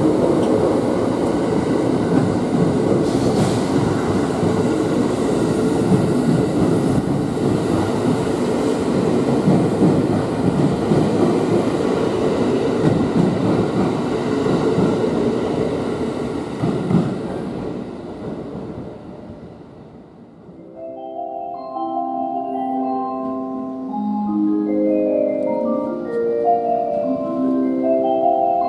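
683 series electric limited-express train pulling out and rolling past along the platform, its running noise dying away after some eighteen seconds. A few seconds later a marimba-like chime melody starts, the kind played over station platform speakers.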